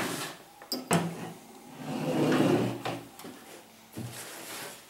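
Things being handled on a table: sharp knocks as a metal antenna tuner box is set down, and a stretch of rustling from plastic parts bags and a nylon carry bag about two seconds in, with another knock near the end.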